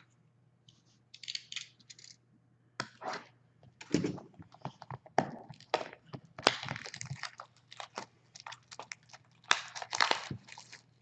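Sealed trading-card box being opened by hand, with irregular crinkling of plastic wrap and cracks and scrapes of cardboard.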